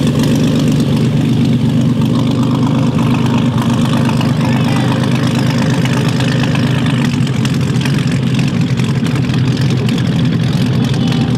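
A classic wooden boat's engine running steadily, one even, low engine note.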